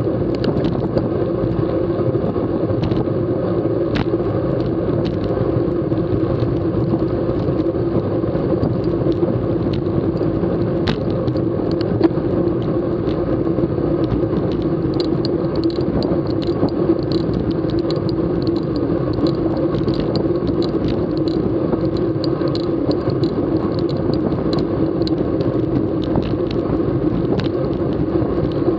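Steady rumble of wind and tyre noise on a camera mounted on a road bicycle riding at speed in a racing bunch, with many small clicks and rattles over the road surface.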